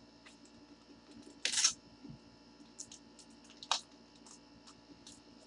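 Quiet room with a few faint, sharp clicks and one short rustle about one and a half seconds in, the loudest sound here.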